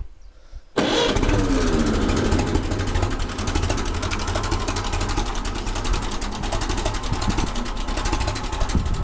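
Ferguson TE20 tractor's four-cylinder engine coming in suddenly about a second in, its revs falling away and settling to a steady tick over.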